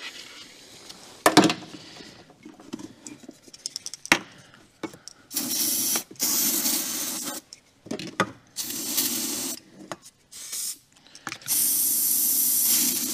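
Aerosol can of starting fluid spraying in several bursts, the longest about two seconds, to prime a petrol engine that won't start. A few clicks and knocks of handling come first.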